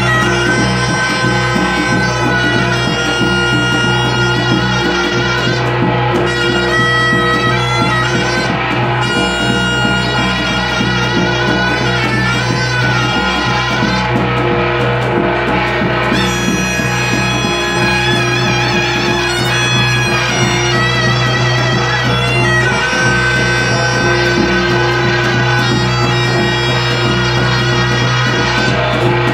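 Korean shamanic ritual (gut) music: a reedy wind instrument plays a wavering melody without a break over a steady low drone.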